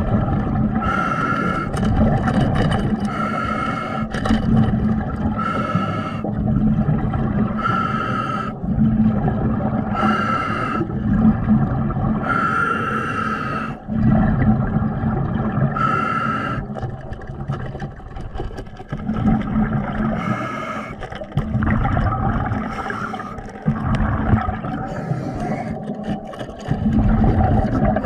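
Underwater sound of a diver breathing through a regulator: a short whistling hiss on each breath, roughly every two seconds and less regular later on, over a steady low rumble of bubbles and water.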